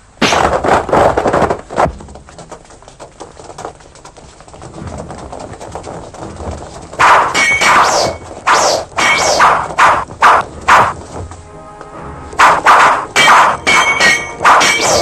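Martial-arts fight sound effects: a quick run of whacks and blows, a quieter stretch with background music, then about a second past the middle a dense flurry of blows and ringing metallic clangs.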